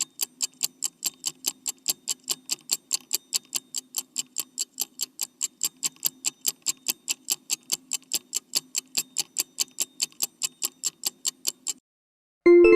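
Alarm clock ticking fast and evenly, about four ticks a second, over a faint steady hum. The ticking stops about a second before the end.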